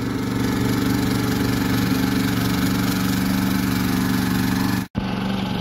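Small tracked mini excavator's engine idling steadily at an even pitch. The sound cuts out for an instant near the end.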